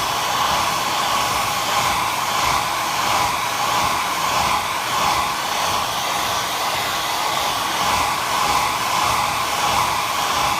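Hair dryer running steadily on high: a continuous airy blowing with a strong whine near 1 kHz.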